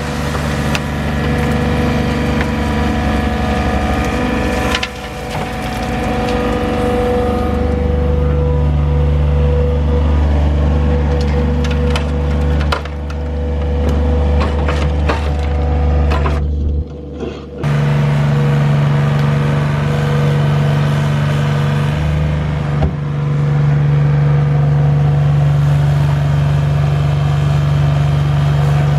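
Engine of a heavy digging machine running under load, its pitch shifting a few times as it works, with scattered knocks and crunches of material being broken out.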